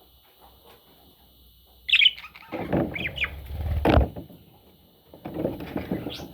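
Budgerigar chirping: a loud gliding chirp about two seconds in, then a few short chirps, over rustling scuffles. There is a sharp knock about four seconds in.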